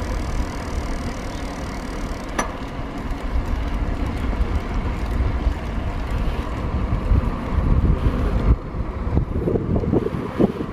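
Steady tyre road noise and wind noise from a moving vehicle, with a brief tick about two seconds in and rougher low gusts of wind near the end.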